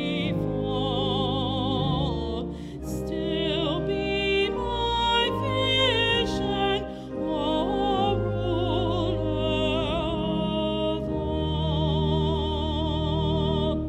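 A woman singing a hymn with a wide vibrato over sustained organ chords, the held notes changing every second or two.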